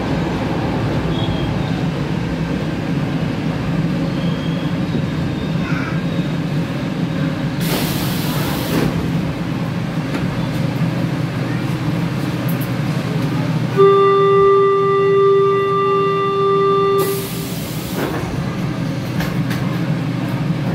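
Buenos Aires Subte Line E train with a steady low hum, pulling in and standing at a platform. A short, sharp air hiss comes about 8 seconds in. From about 14 seconds a loud, steady door-warning buzzer sounds for about three seconds, and a second air hiss follows as the doors close.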